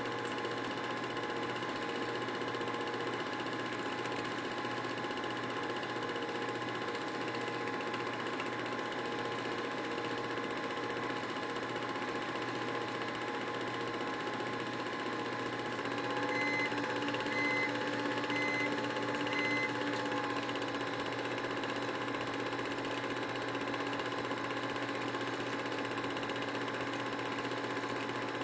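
Steady mechanical whirring of a film projector running a home-movie reel, with a slight change in pitch and four short high pips about a second apart around the middle.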